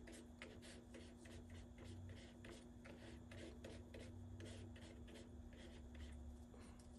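Paintbrush mixing white into blue paint on a paper plate to make a pale blue: a faint, soft scratching of quick strokes, several a second, over a low steady hum.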